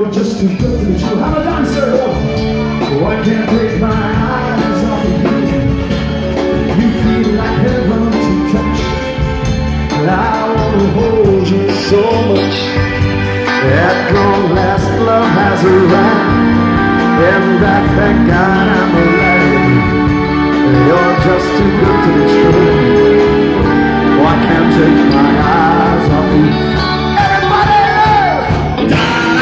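Live band playing a pop cover song with a singer, loud and dense as heard from the dance floor of a large function hall.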